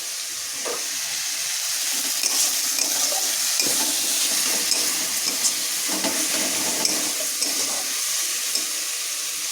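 Food frying in a hot pan, a steady sizzle growing a little stronger about two seconds in, with scattered light clicks and scrapes from stirring.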